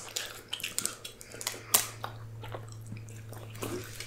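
Close-miked mouth sounds of a person chewing food: scattered wet clicks and smacks, over a faint steady low hum.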